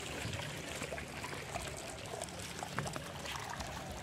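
Shallow pond water trickling and lightly splashing as a hand net is worked through it to scoop up tilapia fry, with small scattered splashes.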